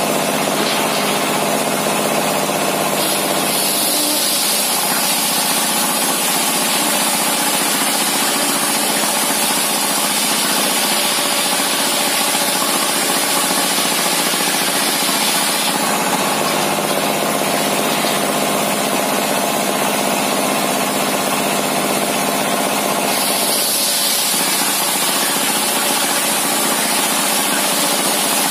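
A homemade circular saw bench driven by a diesel engine, running steadily while its disc blade rips lengthwise through a large wooden beam. A high cutting hiss over the engine drone fades for a while past the middle and comes back near the end.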